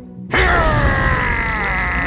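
Cartoon flame-blast sound effect: a low rushing rumble with a slowly falling tone, starting suddenly about a third of a second in.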